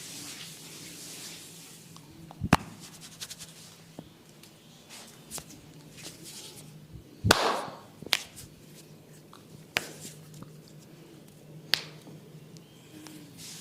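Hands working a head and neck massage: about five sharp smacks and taps spread out, the loudest about seven seconds in, with quieter rubbing between them.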